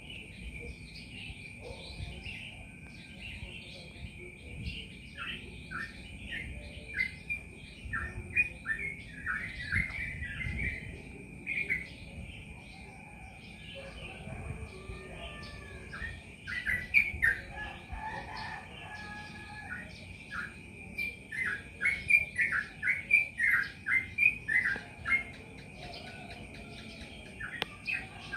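Yellow-vented bulbul (trucukan) singing in quick runs of short notes, one run after another with brief pauses between them. The loudest and densest run comes in the second half.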